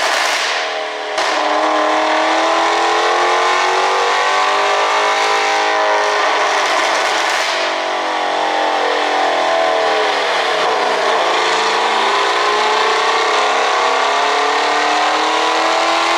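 Maserati Quattroporte GTS twin-turbo V8 running under way, with an ECU tune for exhaust pops. The revs drop sharply about a second in, then climb, fall away around ten seconds in, and rise again.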